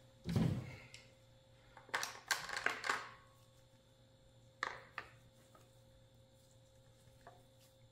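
Handling knocks and clicks of a Herters XK3 bolt-action rifle: a thud about half a second in, a cluster of clicks and knocks around two to three seconds, then two sharp clicks about half a second apart near the middle.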